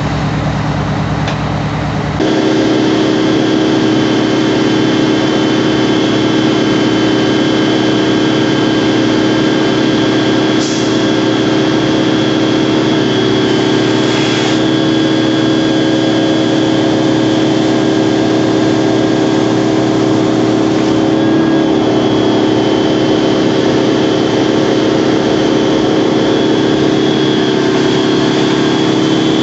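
ARFF crash-rescue truck's engine running hard and steady to drive its fire pump while its turret discharges a stream of foam solution, with a steady hiss of spray. The sound steps up and grows louder about two seconds in.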